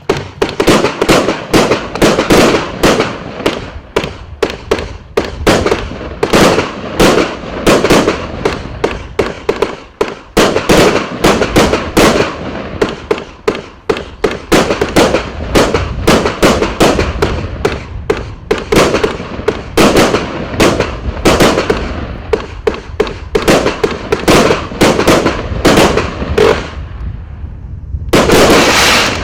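Golden Touch firework barrage going off: a long run of loud shots and bursts, one to three a second. It ends with a dense burst of crackling in the golden willow finale.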